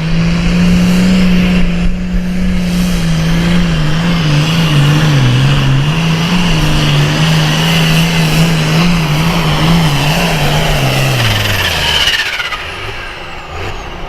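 Turbocharged diesel super farm pulling tractor running wide open under load, with a high turbo whistle over the engine note. About twelve seconds in, the throttle comes off: the engine drops in pitch and the whistle winds down.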